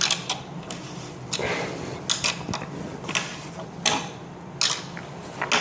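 An Allen key working the bolts of a wooden table, giving about eight sharp, irregularly spaced clicks and clinks, with a brief scrape about a second and a half in.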